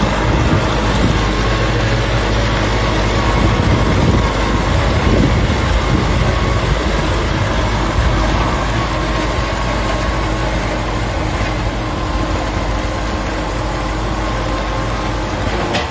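Kubota M6040 tractor's four-cylinder diesel engine running steadily under load while it pulls a disc plow through the field.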